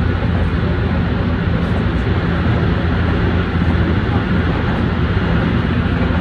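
Steady running noise inside a Tsukuba Express electric commuter train travelling at speed: an even, low rumble of wheels on rail and running gear.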